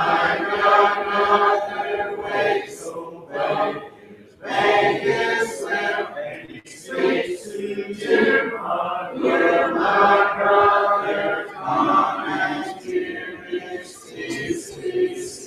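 A church congregation singing a hymn a cappella: many voices together in sung phrases with short pauses between them, and no instruments.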